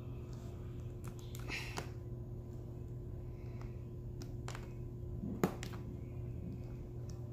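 Scattered small clicks and taps of a diamond-painting drill pen setting resin drills onto the canvas through a plastic placement template, the sharpest about five and a half seconds in, over a steady low hum.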